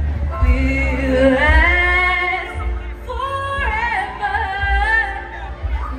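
A woman singing two slow phrases of long held, wavering notes over a backing track with a heavy low bass.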